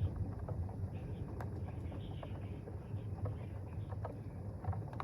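Thunderstorm rain and wind: a steady low rumble with scattered light ticks.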